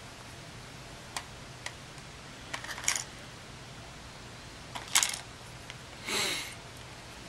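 Small sharp clicks and taps of a dismantled compact camera's plastic and metal parts being handled, with a cluster of clicks about three seconds in and the loudest click about five seconds in, then a brief scraping rub near the end.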